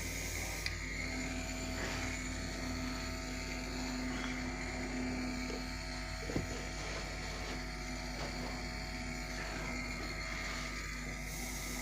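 Small portable airbrush compressor running with a steady hum while grey primer is sprayed through a single-action airbrush. A couple of brief knocks, the louder about six seconds in.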